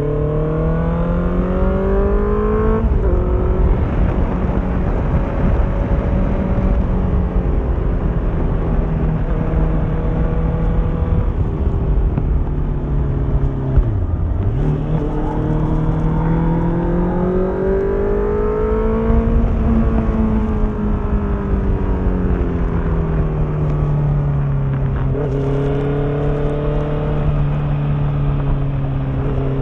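Honda CBR650F's 649 cc inline-four through an Akrapovic exhaust, ridden on the road. The revs climb and fall again and again, with a sharp drop about three seconds in that sounds like a gear change and a deep dip about halfway through.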